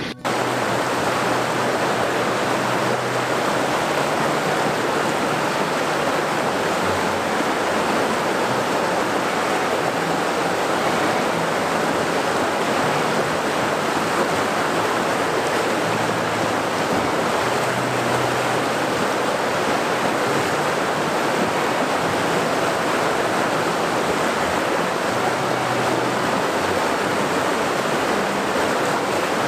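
Fast river water rushing over rapids: a steady, loud, even rush of water.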